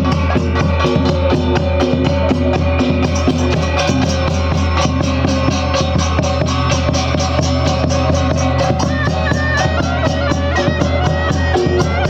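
Loud music with fast, steady drumming and a reedy wind instrument holding a melody over a steady low drone.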